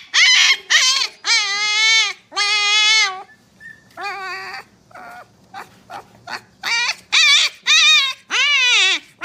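Husky puppy howling: a string of short yelps and drawn-out, wavering howls, with a quieter stretch of brief, softer sounds in the middle.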